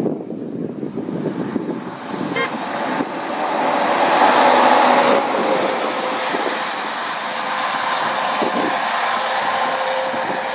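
Articulated lorry with an empty timber trailer passing close by on a wet road. Engine and tyre noise build to their loudest about four to five seconds in, then ease into a steady hum as it moves away.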